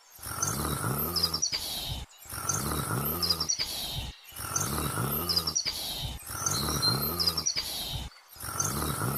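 A short sound clip of about two seconds, played on a loop four to five times with brief silent gaps between the repeats. Each repeat holds low rising and falling pitch glides with chirps above.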